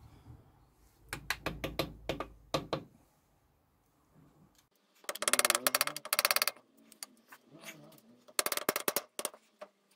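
Screwdriver levering a camshaft oil seal out of a Rover K-series aluminium cylinder head: a run of sharp clicks and knocks, then two bursts of fast rattling scrapes of the blade working against the seal in its bore.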